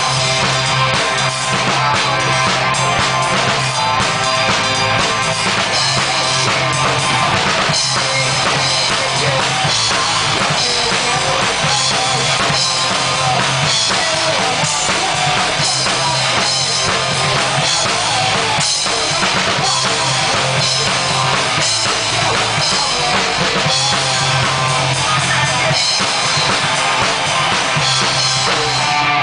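A band playing live with a full drum kit, its bass drum and snare keeping the beat under held low bass notes that change every few seconds.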